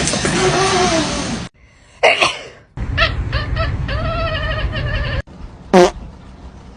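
Animal calls in several short separate snippets with abrupt cuts between them: a short cry about two seconds in, a run of pitched calls in the middle, and one brief call falling in pitch near the end.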